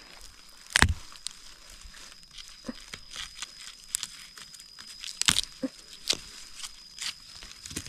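Dry leaves and twigs crackling and snapping, with two louder snaps, one about a second in and one about five seconds in. A faint steady high tone runs underneath.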